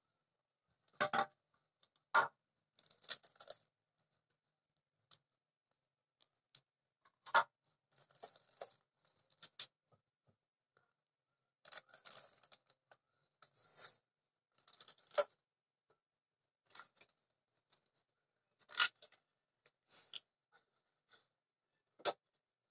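Hard plastic parts of a Bajaj juicer being handled: about a dozen scattered knocks and clicks as the clear lid and body parts are lifted and set down, with short bursts of crinkling plastic wrapping between them.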